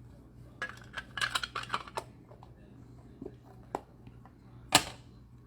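Baseball trading cards being handled at a table: a quick flurry of rustling clicks about a second in, a couple of single clicks, and one sharper snap near the end.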